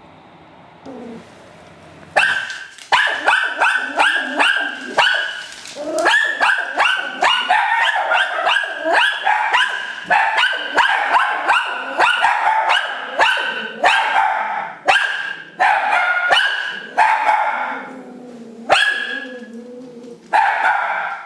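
A dog barking over and over in quick, high-pitched barks, about two to three a second, starting about two seconds in.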